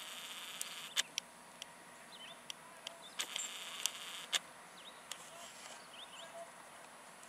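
Camera handling noise: a series of sharp clicks against faint outdoor background, with a few faint bird chirps. A steady high-pitched hum cuts off about a second in.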